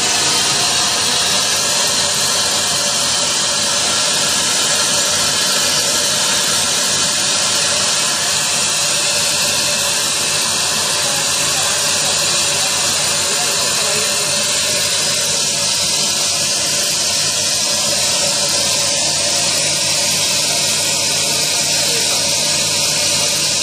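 Plasma cutting torch on a CNC pipe profile cutting machine, cutting through a steel pipe with a loud, steady hiss. Beneath it runs a low, steady hum.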